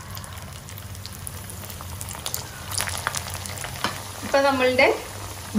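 Bread-and-poha vada deep-frying in hot oil in a wok: a steady sizzle with fine crackling. A short stretch of voice comes in a little after four seconds.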